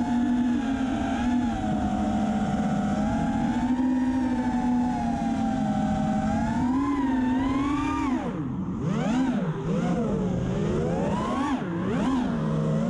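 GEPRC GR2306 2450KV brushless motors of an FPV freestyle quadcopter, heard from the quad's onboard camera. The buzz holds a fairly steady pitch for the first several seconds, then from about eight seconds in sweeps rapidly up and down as the throttle is punched and chopped through manoeuvres.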